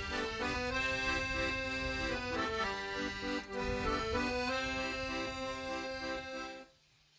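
Paolo Soprani piano accordion playing a tune over a repeating bass-and-chord accompaniment. The music cuts off suddenly near the end.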